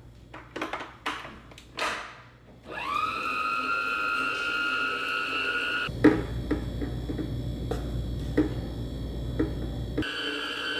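A few clicks and knocks, then a small electric motor spins up with a rising whine about three seconds in and runs steadily. A low rumble with scattered clicks joins it for a few seconds, and the pitch shifts near the end.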